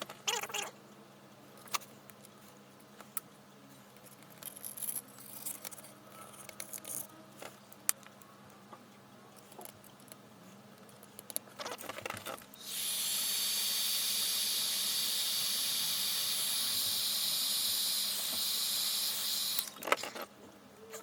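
Small clicks and taps of handling tools and phone parts, then a hot air gun blowing with a steady loud hiss and faint fan whine for about seven seconds before it cuts off near the end.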